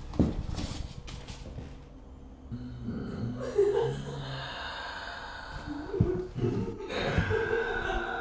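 A knock just after the start, then a woman's tense, gasping breaths with a few more knocks, as a sustained eerie music drone builds in during the second half.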